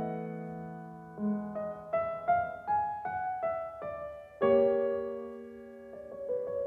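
Background piano music: a slow melody of single notes, each fading out, with a louder chord about four and a half seconds in.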